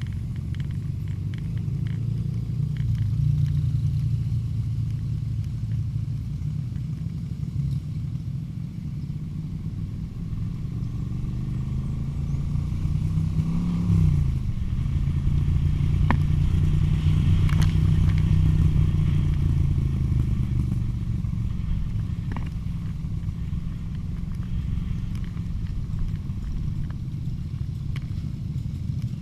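Vehicle engine running steadily under way, its pitch shifting with speed, climbing about halfway through and then dropping quickly before settling again.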